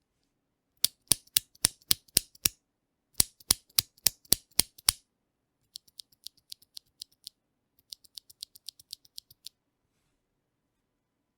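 Keys of an RK71 mechanical keyboard being pressed one at a time, about four clicks a second: two runs of loud, sharp clicks, then two runs of lighter, quieter clicks, the last one quicker.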